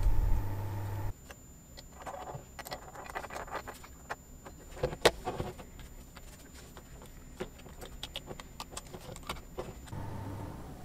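Small metal parts of a miniature four-cylinder flathead engine clicking and clinking lightly as a steel camshaft is handled and slid into its bore in the aluminium block. A steady hum stops about a second in, and the single loudest click comes about halfway through.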